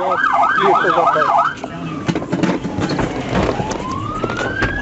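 Police car siren on a fast yelp, about three sweeps a second, that changes about a second and a half in to a slow wail, falling and then rising again near the end.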